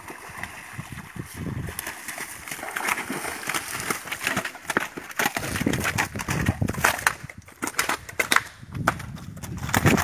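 Large fish splashing as they are hauled from the river, then thrashing and slapping on wet sand in many irregular thumps and smacks.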